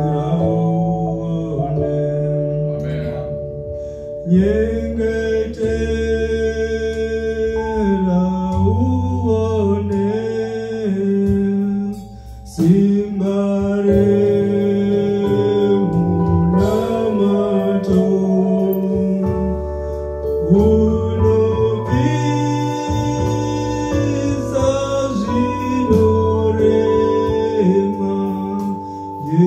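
A man singing a gospel song through a microphone and PA, accompanied by an electronic keyboard holding long sustained chords. The keyboard plays alone at first and the voice comes in about four seconds in.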